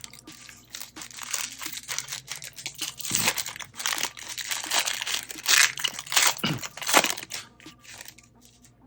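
A baseball card pack's wrapper being torn open and crinkled by hand, crackling on and off, with the loudest crackles in the middle. It dies down near the end.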